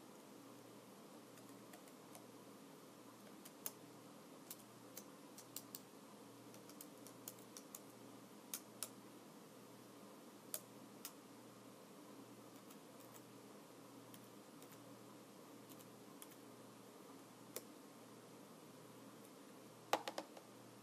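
Computer keyboard keys pressed slowly one at a time: scattered single clicks over a faint steady hiss, with a quick run of louder clicks near the end.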